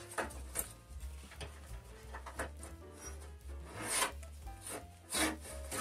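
An NEC hard drive scraping and knocking against the steel drive bay as it is slid out of a PC chassis, in several separate scrapes and knocks, the strongest about four and five seconds in.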